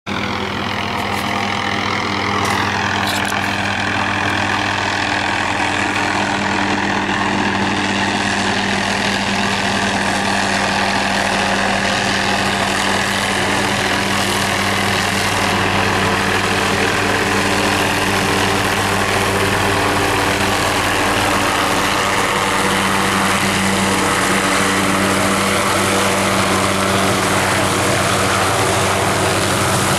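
Police helicopter's engine and rotor, a steady drone growing slightly louder as it approaches and settles to land.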